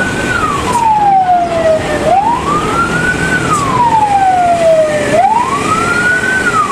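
A siren wailing in slow, even cycles. Each cycle climbs quickly, then slides down more slowly, taking about three seconds, and it repeats about two and a half times over a steady low rumble.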